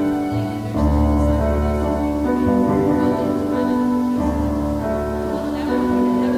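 School orchestra playing slow, held chords as accompaniment to a choral song, the bass note changing every second or two.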